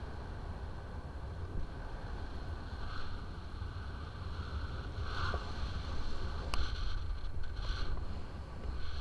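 Airflow of paragliding flight buffeting the microphone: a steady rushing with a heavy low rumble, swelling a little at times, and one sharp click about two-thirds of the way through.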